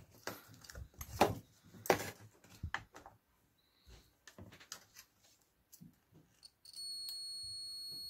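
Small clicks and rustles of multimeter probes being handled, then about seven seconds in a steady high beep begins: a multimeter's continuity beeper sounding as the probes bridge the fuse, which reads near zero resistance.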